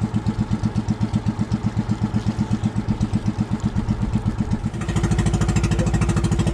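Small boat engine running with a steady, even beat, opening up louder and faster about five seconds in as the boat moves off to search for a school of fish.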